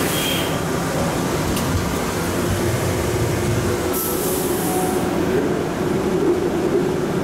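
Airport people-mover train running and pulling to a stop at a station, heard from inside the car as a steady rumble and hum. A short hiss comes about four seconds in.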